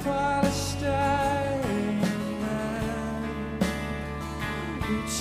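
Background music with a melody that slides between notes.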